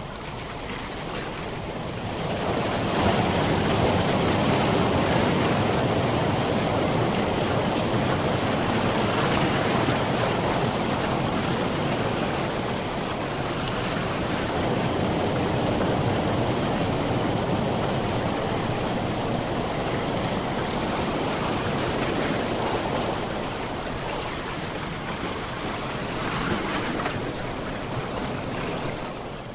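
Ocean waves breaking and washing on the shore in a continuous surge, swelling about two seconds in and easing a little near the end.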